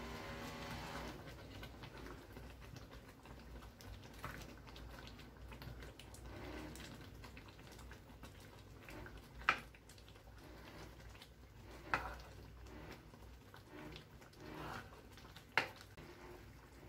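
A spatula stirring a simmering mung bean stew in a wok: soft, quiet stirring and bubbling, with three sharp knocks of the spatula against the pan in the second half.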